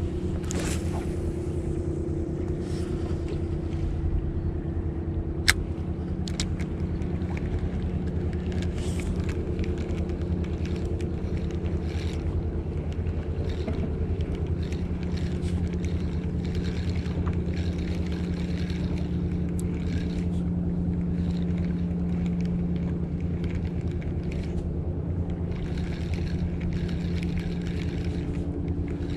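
An engine idles steadily with a low hum, its pitch shifting slightly about halfway through. A single sharp click comes about five seconds in.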